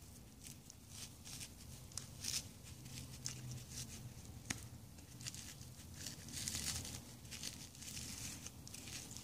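Hands pulling apart and unrolling a damp compressed cotton magic towel as it soaks up water: faint, irregular rustling and crinkling of wet fabric, with one sharper click about four and a half seconds in.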